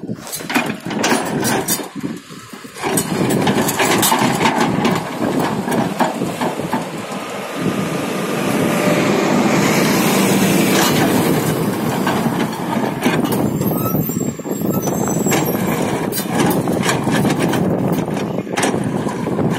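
Hyundai crawler excavator's diesel engine running hard as the bucket breaks up and scrapes the old bitumen road surface, with repeated knocks and clatter of broken asphalt chunks. The engine note grows louder and steadier partway through.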